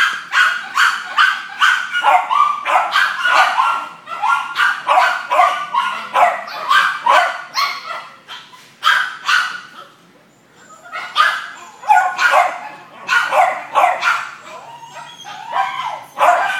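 Dog barking over and over in short, high-pitched yips, about two or three a second, with a brief lull near the middle.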